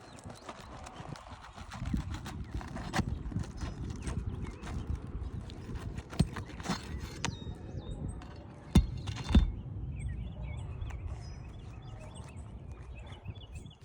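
Nails being pried out of worn roof shingles: scraping and repeated knocks of a tool working under the shingle, with two sharp, loud knocks a little past the middle. The shingles are brittle and tear as the nails come out.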